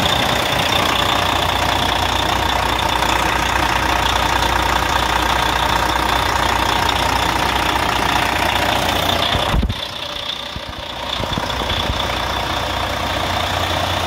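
2005 Kenworth T800 6x6's heavy-duty diesel engine idling steadily after a cold start, heard close to the open engine bay, with a steady high whine along with it. About ten seconds in the sound turns briefly duller and quieter, then comes back.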